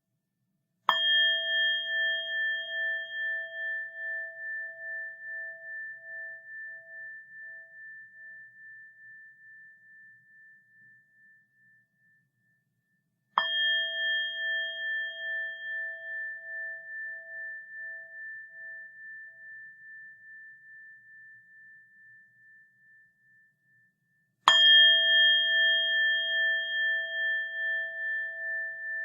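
A bell struck three times, about a second in, about 13 seconds in and about 24 seconds in. Each stroke rings out with a long, pulsing decay of about ten seconds; the last is still ringing at the end.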